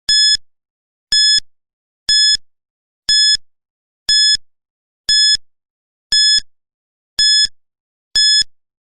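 Quiz countdown timer beeping once a second: nine short, identical electronic beeps at one steady high pitch, counting down the answer time.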